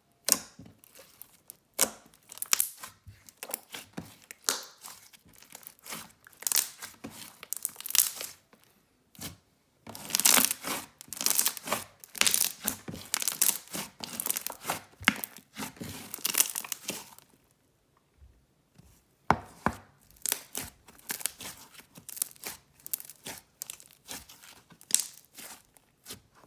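Clear glue slime being squished and stretched by hand, making dense, irregular sticky clicks and bubble pops, with two short pauses partway through.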